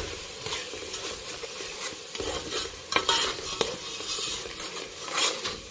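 A steel spoon stirring and scraping through frying masala in a metal pot: onion, spice paste, mint and green chillies sizzling in oil, with a few sharp clicks of the spoon against the pot.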